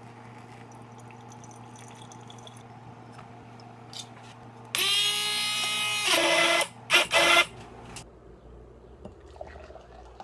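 A small handheld electric blender running in a glass beaker of coffee: its motor whines up to speed about halfway in and runs for under two seconds, then gives two short pulses. A low steady hum lies under it.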